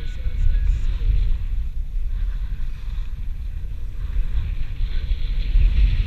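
Wind buffeting the microphone of a moving skier's action camera, a heavy steady rumble, with the hiss of skis sliding over packed snow that grows louder near the end.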